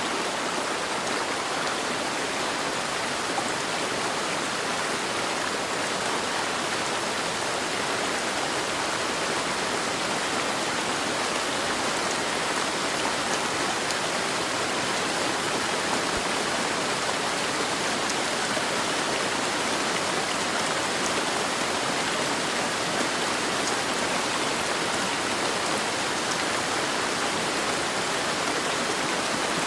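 Steady heavy rain falling, an even hiss of water with a few faint drop ticks.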